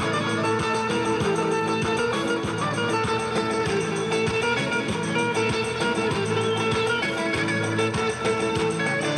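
Background music: an instrumental passage led by plucked guitar over a steady beat.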